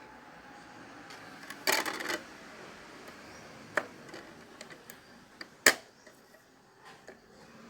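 Light clicks and a short clatter of small hard objects being handled: a quick run of rattling clicks about two seconds in, then single clicks near four seconds and just before six seconds, the last the loudest.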